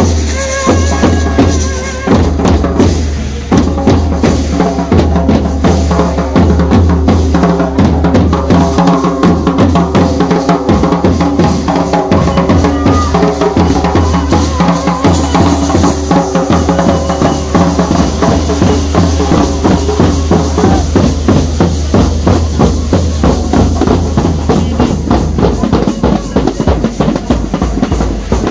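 Procession drumming: a large hand-held drum beaten in a fast, steady rhythm with metal hand cymbals clashing along with it. A steady pitched tone sounds over the beat through most of it.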